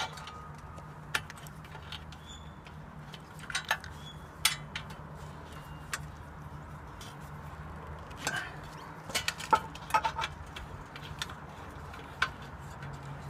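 Irregular metallic clinks and taps as an aluminium solar-panel mounting rail is fitted and its bolts tightened onto tile-roof brackets, with a cluster of clicks about nine to ten seconds in.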